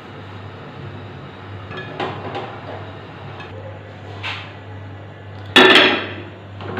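Cookware knocking lightly a few times, then one loud ringing clank near the end, over a steady low hum.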